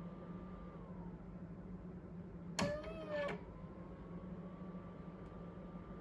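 The automatic turntable of a Solutionix C500 3D scanner turns with a faint motor whine that winds down as it stops. A louder buzzing tone of under a second, with a click at each end, comes between turns, and the turntable whine starts again, all over a low steady hum.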